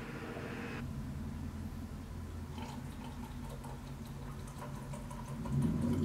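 Liquid pouring into a metal cocktail shaker: a thick blueberry purée trickling in stops a little under a second in, then bourbon is poured from its bottle with faint splashing and small ticks. A low steady hum runs underneath.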